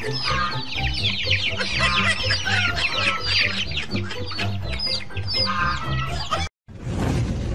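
A flock of young chickens peeping and clucking: many short falling peeps overlap continuously, with some lower clucks among them, over background music. They cut off abruptly about six and a half seconds in, and a rushing noise follows.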